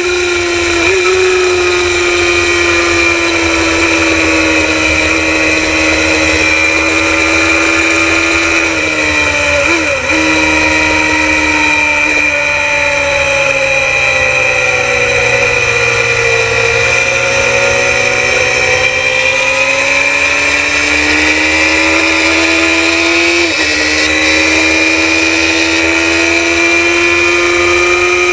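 Suzuki GSX-R750L racing motorcycle's inline-four engine running hard at high revs, heard from on board the bike. The pitch drops slowly over several seconds as it slows for a corner, then climbs back up as it accelerates out, with quick gear changes about a second in, about ten seconds in, and again near the end.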